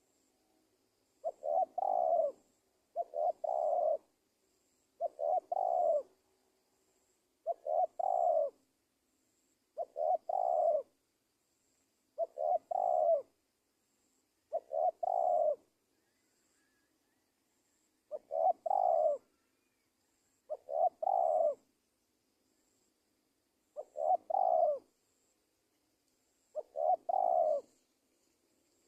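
Spotted dove (tekukur) used as a lure bird, cooing about eleven times, once every two to three seconds. Each call is a short stutter of notes running into a longer, deeper coo.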